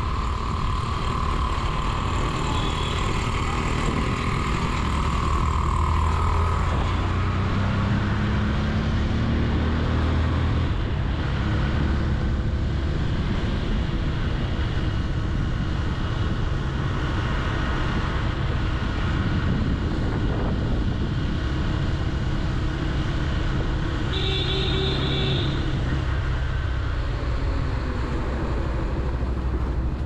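Motorcycle engine running under way through city traffic, with wind rushing over the camera microphone; the engine note climbs as the bike accelerates several seconds in. A short high-pitched beep sounds near the end.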